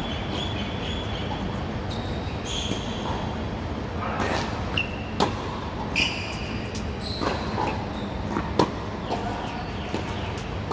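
Tennis rally on a hard court: sharp pops of the ball off racquet strings and off the court surface, coming irregularly about once a second, over a steady background hiss.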